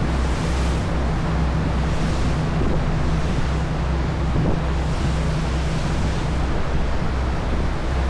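Passenger ferry under way: a steady low engine drone under the rushing of the churned wake water, with wind buffeting the microphone in soft swells every couple of seconds.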